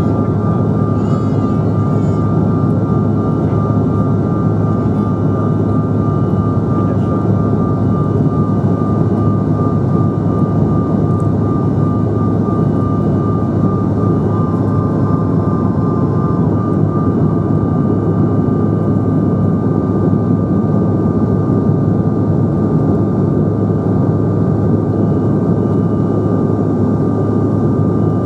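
Cabin noise of a Bombardier CRJ900 climbing out after takeoff: its rear-mounted General Electric CF34 turbofans at climb power and the airflow over the fuselage make a steady, loud rush with a steady high whine on top.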